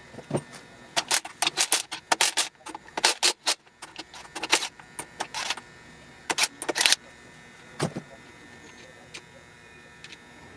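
Irregular sharp metallic clinks and clacks of hand tools and engine parts being handled during an LS V8 short-block teardown, coming thick for about seven seconds, then one more near eight seconds.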